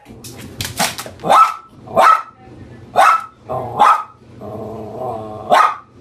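Chinese Crested dog barking excitedly, about six barks roughly a second apart, with a longer drawn-out growl just before the last bark. A running washing machine hums low and steady underneath.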